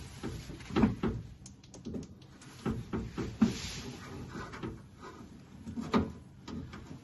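Scattered clunks and knocks with some scraping as a car door's window glass and regulator are worked loose inside the steel door shell, the glass being pushed out of its track.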